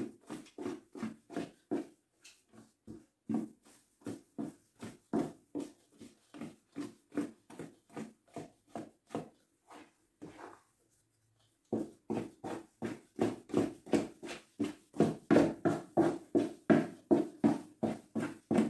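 Wooden spoon beating thick cornmeal cake batter in a metal mixing bowl as flour is worked in: rhythmic strokes about three a second. They pause briefly about ten seconds in, then resume louder.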